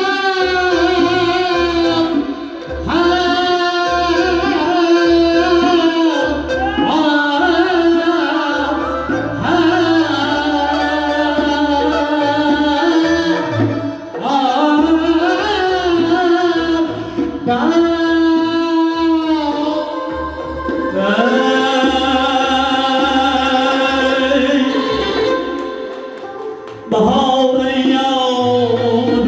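Live Uzbek band music: a man sings a long, ornamented melody with wavering pitch into a microphone, backed by doira frame drum, electric guitar and keyboard. The singing comes in long phrases with short breaks between them.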